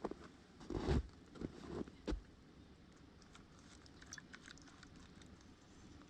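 A few soft crunching thumps in the first two seconds, the loudest about a second in, then faint scattered crackles and pops from a wood campfire.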